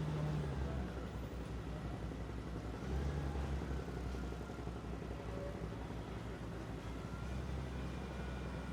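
Engines running, a steady low rumble that swells briefly about three seconds in, over a general haze of street noise.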